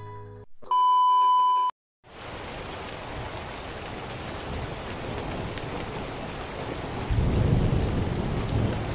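A loud steady beep lasting about a second, then after a short gap a steady hiss of noise that slowly grows louder, with a deep rumble coming in near the end.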